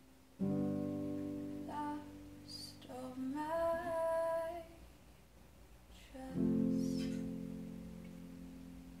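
Woman singing to her own digital piano accompaniment. A chord is struck just after the start and fades, she sings a couple of short phrases ending in a held note, and a last chord about six seconds in rings and slowly dies away.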